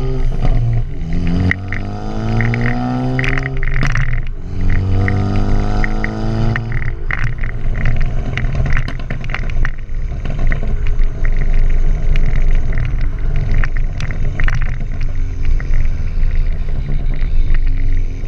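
2013 Ford Focus ST's turbocharged 2.0-litre four-cylinder through an aftermarket MBRP exhaust. The revs climb, drop sharply about four seconds in and climb again, then the exhaust pops and crackles repeatedly as the engine comes off the throttle. The crackles come from a flash tune written to make them on the overrun.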